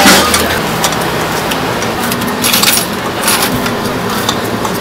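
Scissors snipping and metal spoons and ladles clinking against bowls and pots at a food stall counter, a scatter of short sharp clicks with a brighter cluster about halfway through, over a steady background din.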